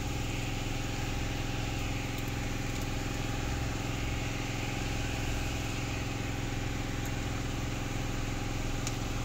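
Sev (potato bhujia) dough strands frying in hot oil in a kadhai, a steady sizzle of bubbling oil, over a constant low mechanical hum.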